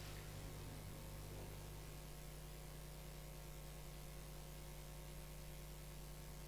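Faint, steady electrical hum with a light hiss, like mains hum on an audio line.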